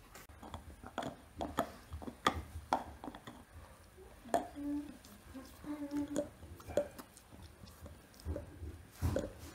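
German Shepherd gnawing a marrow bone: irregular crunching and cracking of teeth on bone, a few clicks a second.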